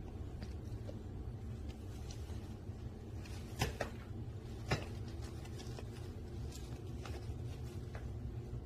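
Puppy playing with a plush duck toy on a hard floor: a few light ticks and two sharp knocks, about three and a half and nearly five seconds in, over a steady low hum.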